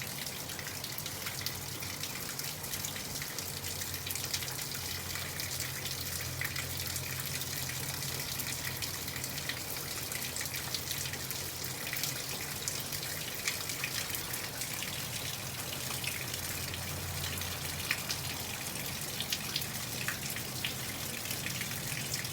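Wet snow falling: a steady hiss with scattered light ticks of flakes and drips landing, over a low steady hum.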